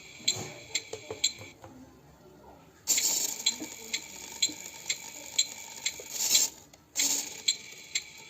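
Regular ticking, a little over two ticks a second, like a turn-signal indicator, over a high hiss that cuts out and comes back about halfway through.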